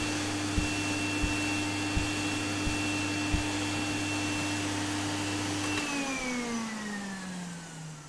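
Canister vacuum cleaner running steadily, drawing air through a homemade cyclone separator, with five soft low thumps in the first few seconds. About six seconds in it is switched off and the motor winds down with a falling whine.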